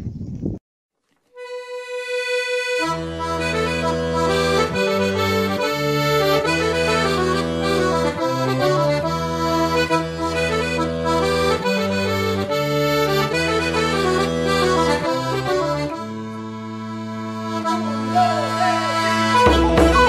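Background folk music on a reed instrument. It opens with a single held note about a second in, then a reedy melody comes in over shifting bass notes, which settle into a steady drone near the end.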